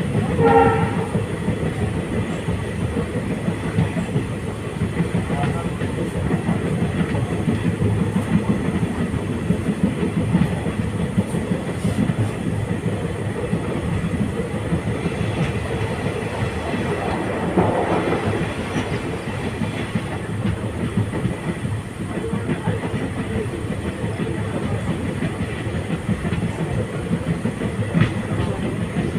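Train running along the track: a steady, continuous rumble.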